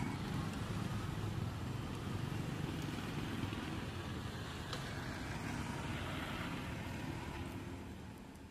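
Steady low outdoor rumble, with one faint click about five seconds in, fading out near the end.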